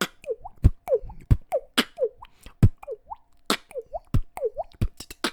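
Human beatboxing: mouth kick drums and sharp K snares interleaved with water-drop effects, short bloops that swoop down then up in pitch like a drop falling into water, about two a second in a steady groove.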